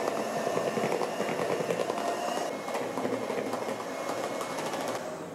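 Electric hand mixer running steadily, its beaters whipping cream with Nutella in a plastic bowl: a steady motor whine over a dense churning noise. The cream is being beaten to stiff peaks.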